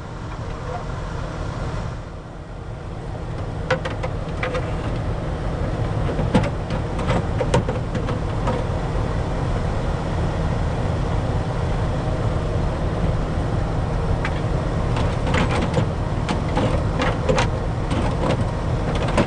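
Steady low rumble of an idling truck engine, with scattered sharp clicks and knocks of parts and fasteners being handled from about four seconds in.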